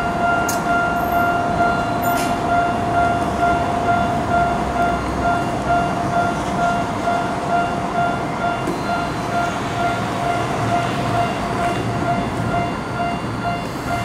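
Railroad crossing alarm ringing in a steady pulsing tone while a Tokyo Metro Ginza Line subway train passes over the crossing, a low rumble of wheels on rail beneath the bell.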